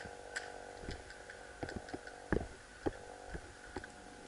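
About ten sharp, irregularly spaced clicks and knocks over a faint steady hum.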